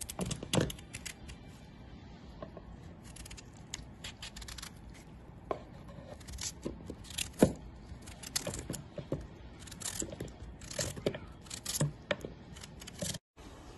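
Kitchen knife cutting raw potatoes into cubes: irregular crisp cuts and scrapes, with a few sharper clicks.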